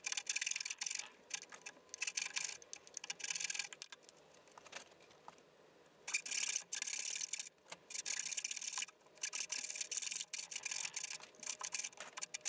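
Coping saw cutting the waste between dovetail tails in a wooden board: quick back-and-forth sawing strokes, with a quieter pause of about two seconds near the middle.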